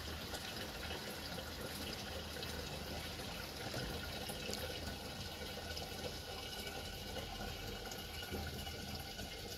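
Thin stream of water running steadily from a metal outlet pipe into the open mouth of a plastic jerrycan as it fills.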